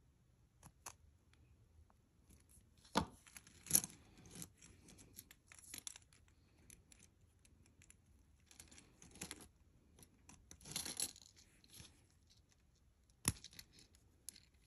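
Faint clicks and clinks of jewelry pliers and gold-tone metal bracelet links as the bracelet is put back together, coming in scattered small clusters with quiet gaps between.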